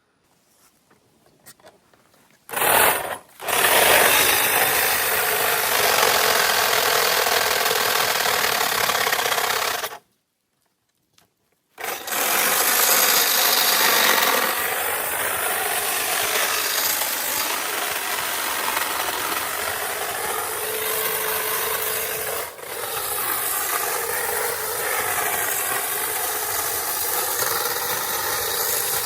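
A power saw running and cutting through branches, its pitch wavering as it works through the wood. It starts a couple of seconds in, breaks off for about two seconds near the middle, then runs on.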